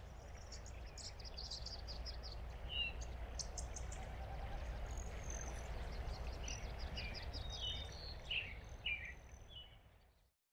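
Outdoor nature ambience: several birds chirping and calling in short, varied phrases over a steady low rumble, fading out near the end.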